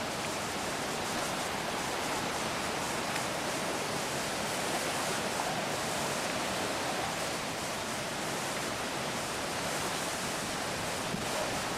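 Floodwater rushing through the open gates of a dam, a steady even rush of rough white water from a river in flood.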